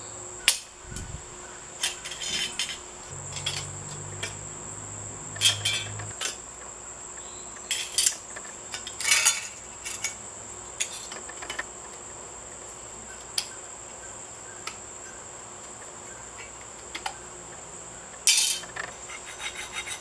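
Metal clinks and scrapes in scattered bursts as a screwdriver pries the cooling fins off a microwave magnetron. A steady high-pitched whine runs underneath throughout.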